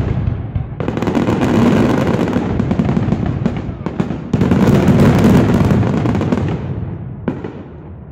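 Aerial fireworks display: dense, rapid crackling and banging from bursting shells and crackle stars. It comes in two surges, one starting about a second in and a louder one a few seconds later, then thins out, with a single sharp bang near the end.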